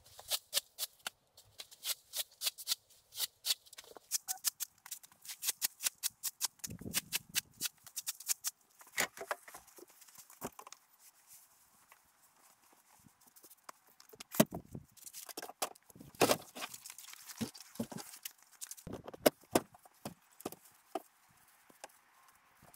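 Broom sweeping a canvas ground tarp in quick, even brushing strokes, several a second, for the first eight seconds or so. After that come scattered clicks and knocks as things are moved and set down.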